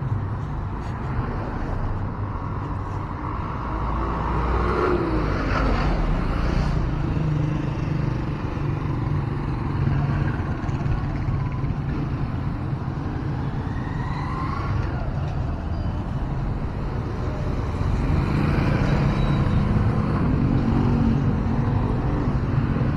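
Street traffic: a steady rumble of cars and small motorcycles, including motorcycle-sidecar tricycles, running and passing close by. A couple of engines rise and fall in pitch as they go past.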